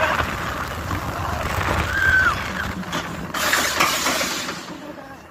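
Fury 325's roller coaster train running along its steel track, with mechanical rattling and clacking. A louder rush of noise comes about three seconds in, then the sound fades near the end.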